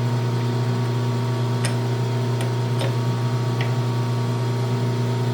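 A few light, sharp metal clicks from working a lathe's four-jaw chuck to loosen a jaw, over a steady low hum.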